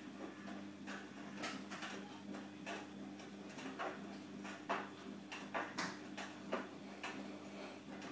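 Irregular light clicks and taps, about one or two a second, over a steady low hum. This is typical of a phone being handled while filming.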